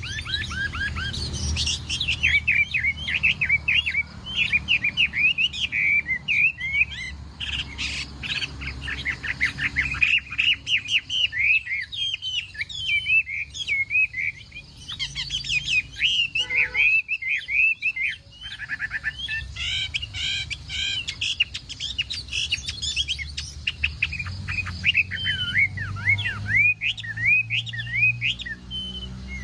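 Chinese hwamei (hoạ mi) singing: a fast, nearly unbroken stream of varied whistled and warbled phrases, thinning briefly about halfway through.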